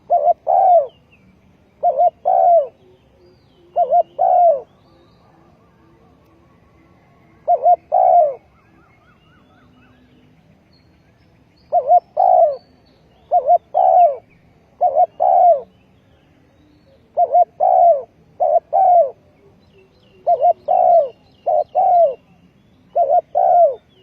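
Spotted dove cooing: short phrases of two or three coos, repeated every second or two, with a pause of a few seconds near the middle. Faint higher chirps from small birds sit behind them.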